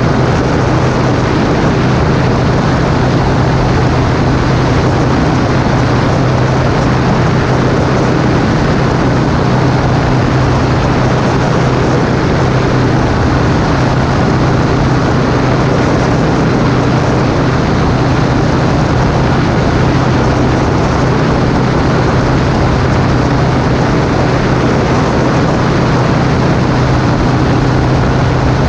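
Flexwing weight-shift microlight's engine and pusher propeller running steadily, a constant low drone under a rushing noise of air.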